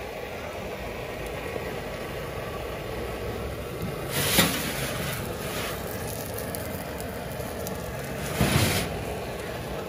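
Gas oven burner running with a steady rushing hiss. Two brief louder rushes of noise come about four and eight and a half seconds in.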